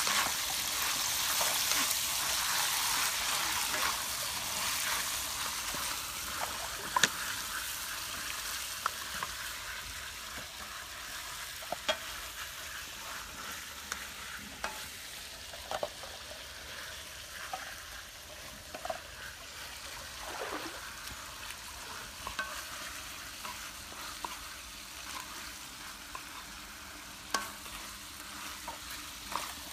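Food frying in a wok on a portable gas stove, sizzling while a wooden spatula stirs and scrapes it, with scattered sharp clicks and knocks. The sizzle gradually dies down.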